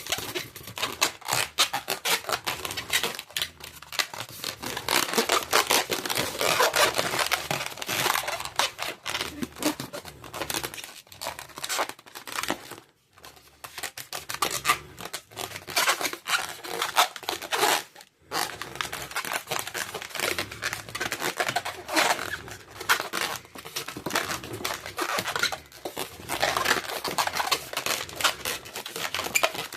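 Latex twisting balloons handled and twisted by hand: a dense, continuous run of rubbing and crinkling, broken by two short pauses near the middle.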